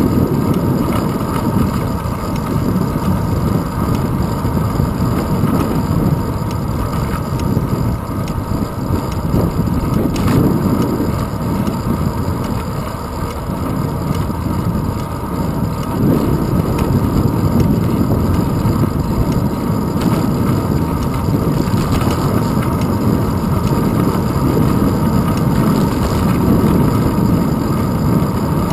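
Wind buffeting a handlebar-mounted action camera and bicycle tyres rolling on asphalt, a steady low rumble.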